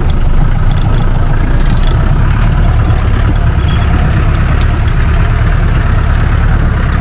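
Four-wheel-drive jeep's engine running steadily on a rough off-road track, with a few light knocks and rattles.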